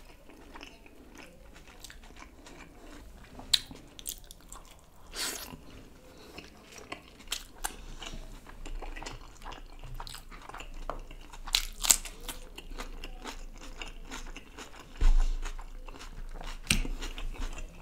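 Close-miked chewing of a steamed butter chicken momo: soft wet mouth sounds broken by many sharp smacks and clicks, a few of them louder around the middle and near the end.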